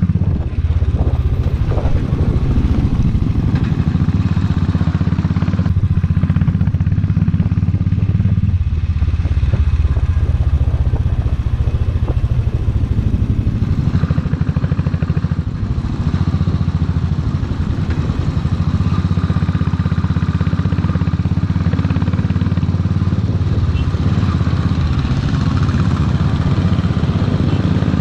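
Motorcycle engine running steadily as the bike is ridden, a low throb heard from the rider's own machine, with a brief dip in level about halfway through.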